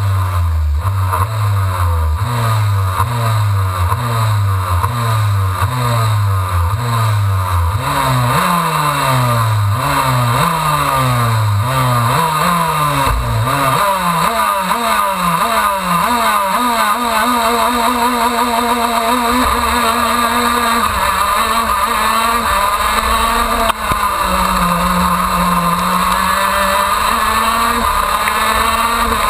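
Two-stroke KZ2 shifter kart engines blipped up and down about once a second while the karts wait on the start grid. About 14 seconds in the field launches, and the onboard engine accelerates hard up through the gears with the other karts' engines all around it.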